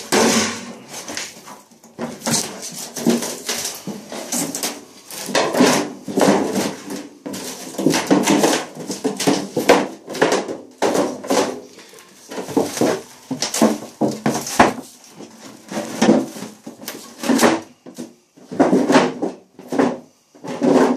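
Irregular bursts of scraping, rattling and rustling as the stripped sheet-metal casing and foam insulation of an electric water heater are handled and worked on.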